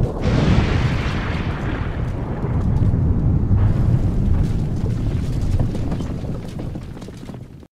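Explosion sound effect of a house blowing up: a fresh blast right at the start over a deep, continuing rumble, which dies away and fades out near the end.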